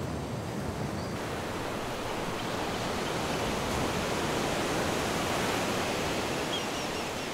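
Steady rushing outdoor noise that swells over the first few seconds and then eases, with faint, short, high chirps scattered through it.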